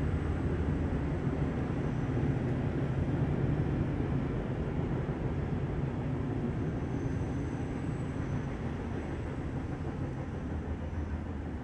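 A steady low rumbling drone with no breaks, heaviest in the bass, with a faint thin high whistle in the background. It is presented as a recorded 'metallic sound' of Pluto.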